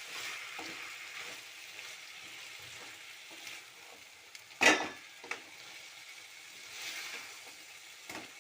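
Ivy gourd pieces sizzling in a pan as they fry and are stirred, with a sharp clank about halfway through and a smaller one just after.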